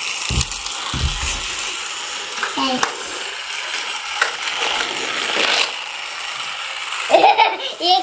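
Battery-powered toy jeep running along a flexible plastic snap-together track, its small motor and gears whirring steadily.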